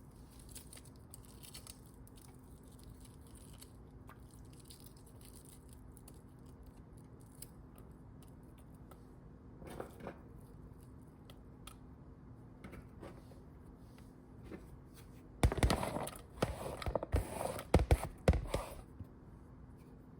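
Faint room tone with a low steady hum, then about three quarters of the way through a few seconds of loud crinkling and scraping as ingredients and their packaging are handled over a crock pot.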